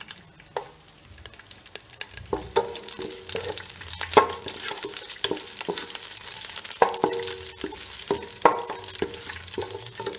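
Cashews and raisins sizzling as they fry in Dalda in a pan, stirred with a spoon that knocks and scrapes against the pan many times, some knocks ringing briefly.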